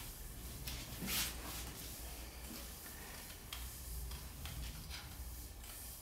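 Faint light clicks of bamboo canes knocking against each other as a bundle is rolled and pressed over a person's back, about once a second, over a steady low hum.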